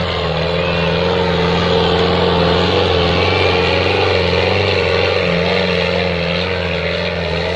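HMT 5911 tractor's diesel engine running hard and steady, pulling a harrow under heavy load.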